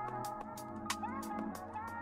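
Background music: a song with a steady beat, regular percussion ticks and a sliding melody line.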